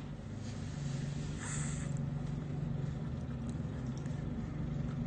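Lawn mower engine running at a steady pitch, heard from indoors through a window screen. A brief hiss comes about a second and a half in.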